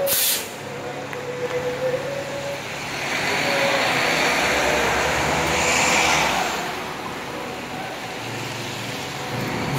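Street traffic beside a stopped battery-electric bus: a vehicle passes close by, its noise swelling from about three seconds in and fading after about six. A short hiss is heard right at the start, over a steady hum.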